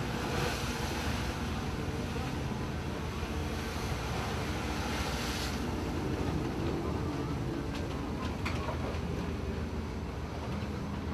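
Ship's engine running with a steady low drone, under a rush of water and wind noise on the microphone that is stronger for the first five seconds or so.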